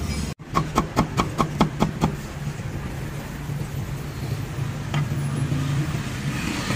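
Cleaver chopping on a round wooden chopping block: a quick run of about nine sharp chops at roughly five a second, then one more knock about five seconds in. A steady hum of road traffic runs underneath.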